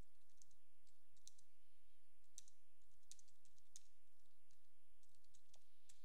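Typing on a computer keyboard: a run of irregular key clicks, some in quick pairs, with short gaps between them.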